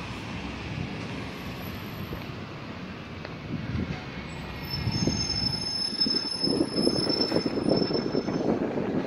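Road traffic on a town street, with a steady, high-pitched metallic squeal from about four and a half seconds in until near the end. A car draws close and passes as the squeal fades, growing louder over the last few seconds.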